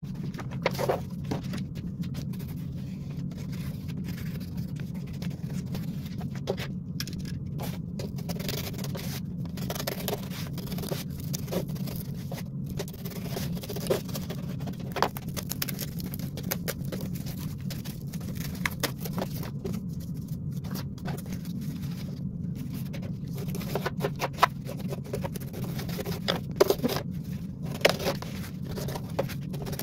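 Snap-off utility knife scraping and cutting through corrugated cardboard, in many short strokes with scattered clicks as the sheet is handled, over a steady low hum.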